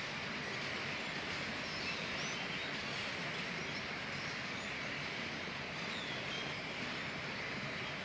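A large flock of birds perched in a bare tree, all calling at once: a steady, dense chatter with many short chirps and squeaks over it.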